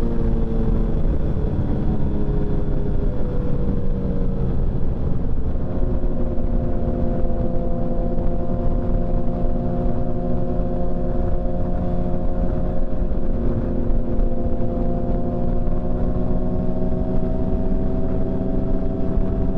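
Motorcycle engine running at a steady cruise, its pitch easing down slightly over the first few seconds and then holding, with wind rumbling on the microphone.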